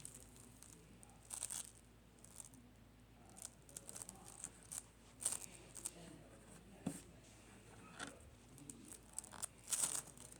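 Slime being squeezed and stretched by hand, giving irregular crackles and small pops, with a few louder snaps scattered through.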